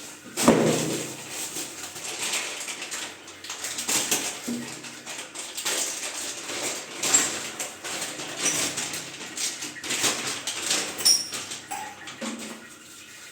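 A chrome wall mixer being unpacked and handled: irregular rustling and light knocks, with a sharper knock about half a second in.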